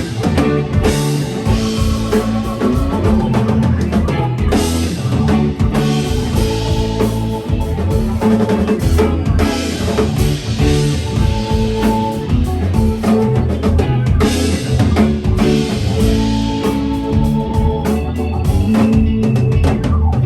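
Live jam band playing an instrumental passage: drum kit, guitar and bass, with no vocals.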